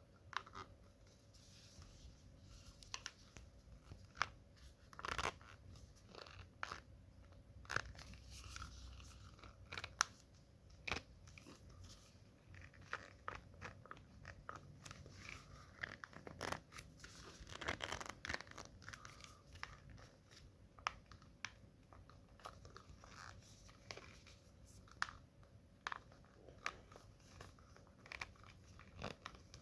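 Faint, irregular clicks, taps and crunching scrapes of hands working on a road-bike saddle and its small parts.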